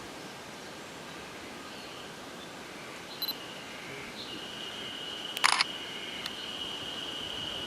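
Small mechanical clicks from handling the video camera, the loudest a quick cluster of two or three clicks about five and a half seconds in. A steady high-pitched tone comes in about four seconds in and carries on.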